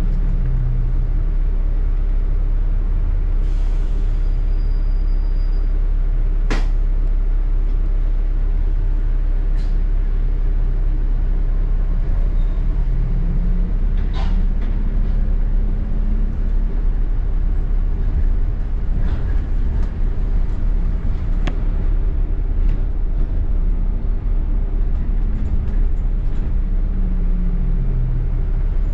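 Ride inside a double-decker bus: a steady low drivetrain rumble whose pitch falls as the bus slows near the start and near the end, and rises as it pulls away about halfway through. A few sharp rattles and knocks sound along the way.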